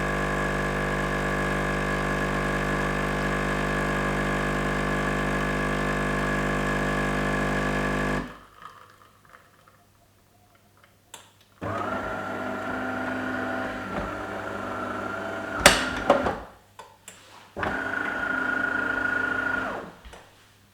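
De'Longhi Magnifica ESAM4200 bean-to-cup coffee machine's pump buzzing steadily as it dispenses coffee, cutting off about eight seconds in. After a short pause the machine runs twice more in shorter, higher-pitched stretches, with a sharp click between them.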